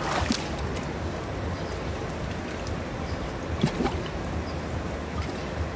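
Pool water splashing briefly twice around legs dangling in it, about a quarter second and three and a half seconds in, over a steady low rumble.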